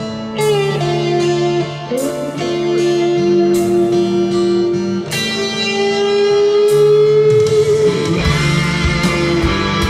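Instrumental band intro led by guitar: long sustained melody notes with bends over a steady bass line. The accompaniment grows fuller, with low hits, about eight seconds in.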